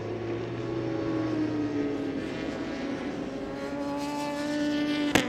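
Honda CBR1000RR superbike's inline-four engine running at race pace through a corner, its pitch sinking over the first couple of seconds and then holding steady. A sharp click sounds just before the end.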